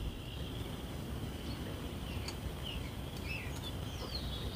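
Outdoor background: a steady low rumble and a steady high hiss, with a few short bird chirps scattered through it.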